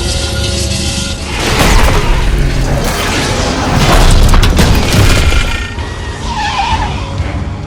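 Action-film sound mix of a vehicle chase: heavy booms and crash impacts of colliding vehicles over dramatic score music, loudest about two seconds in and again around four to five seconds in.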